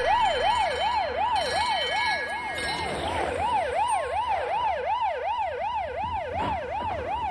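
Siren sound effect wailing rapidly up and down, about three sweeps a second, over a low rumble.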